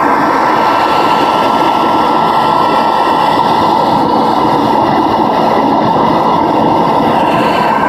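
Soviet-era Raketa vacuum cleaner running steadily at full power: an even, loud rush of air and motor noise with a thin steady whine over it.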